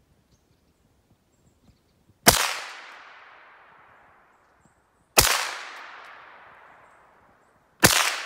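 Three gunshots about three seconds apart, each sharp crack followed by a long echo that fades over about two seconds.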